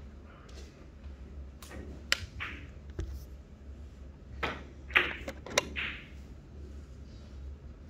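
Billiard shot in Italian five-pin: the cue tip strikes the cue ball about five seconds in with a sharp click, and a second click follows just over half a second later as the balls collide. Fainter clicks come a few seconds earlier.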